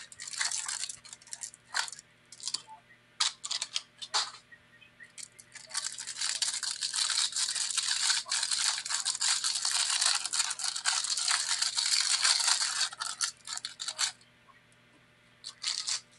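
Clear plastic wrapper crinkling and tearing as a stack of trading cards is unwrapped: short crackles over the first few seconds, then one long continuous crinkling from about five seconds in that stops abruptly near fourteen seconds, with two brief crackles near the end.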